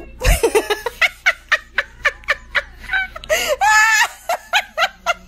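A person laughing hard in rapid bursts, about four a second, rising into a longer high-pitched squeal of laughter a little past the middle.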